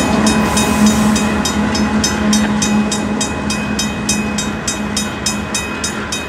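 Railroad grade-crossing bell ringing in quick even strokes, about four a second, becoming clearer about a second and a half in. Under it is the steady drone of a Union Pacific freight train's diesel locomotive, fading slowly as it moves away down the track.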